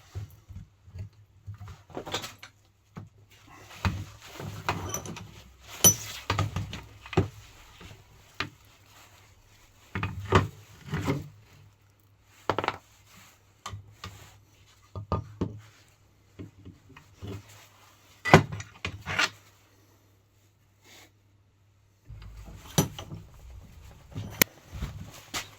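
Hand work with tools and car parts: irregular clicks, knocks and clatter, with the sharpest knock about 18 seconds in and a short pause shortly before the end.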